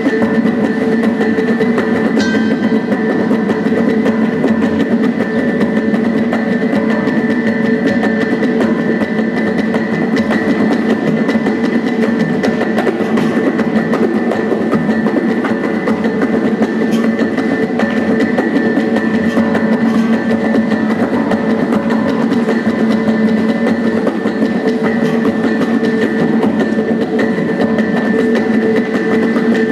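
Percussion music playing steadily: fast, dense drumming over sustained ringing tones that hold the same pitches throughout.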